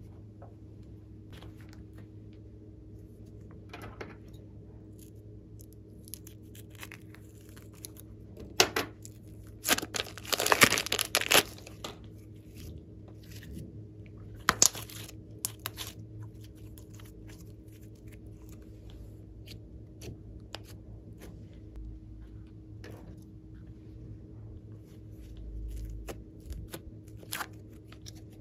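Sticky slime and a plastic piping bag handled by hand: wet crackles, clicks and pops, with a dense run of crackling about ten seconds in and a sharp pop a few seconds later. A faint steady hum lies underneath.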